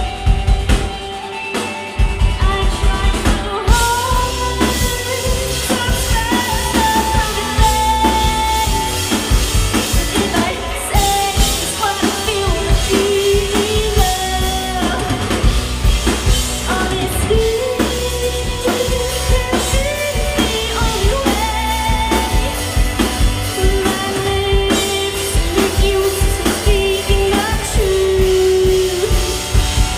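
Indie rock band playing live, with sung vocals over drum kit and electric guitar; the band drops out briefly about a second in and comes back in full about two seconds in.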